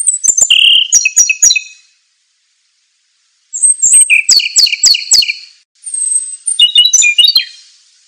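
A songbird singing three loud phrases of rapid, high-pitched notes and short trills, each about two seconds long, with brief pauses between them.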